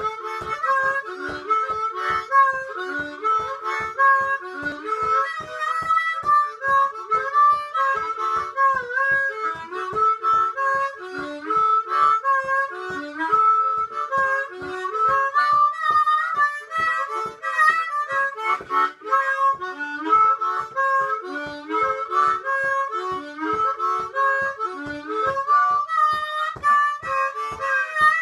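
Harmonica played solo: a boogie with a melody of short notes over an even beat of breath pulses, about two to three a second.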